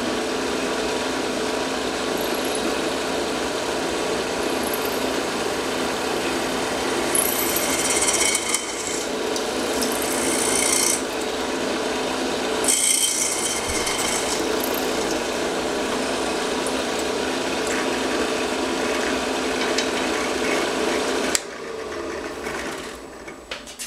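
Benchtop drill press running, its bit cutting down through a wooden jig and the piston held in it, with a steady motor hum under a scraping cutting noise. The cutting gets louder and brighter twice, about 7 seconds in and again about 13 seconds in. The noise drops sharply a couple of seconds before the end.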